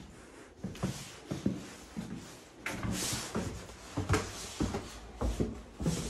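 Footsteps climbing bare wooden stairs, about two dull thuds a second. A brief hiss about three seconds in.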